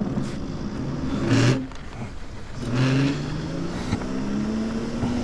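5000-watt e-bike's electric motor whining as the bike pulls away, its pitch climbing steadily from about three seconds in as it gathers speed. Two short rushes of noise, about a second and a half and three seconds in.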